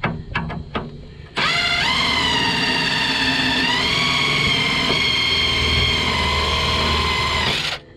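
A few knocks and clicks, then a motor starts with a high whine that rises in pitch and runs steadily for about six seconds. Its pitch steps up once midway, and it stops suddenly near the end.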